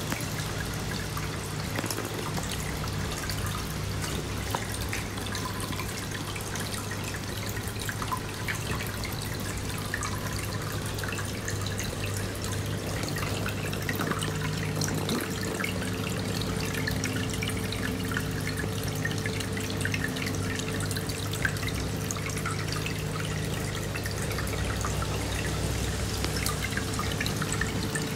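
Small aquarium bubbling: a steady stream of air bubbles rising and popping with trickling, dripping water, over a steady low hum.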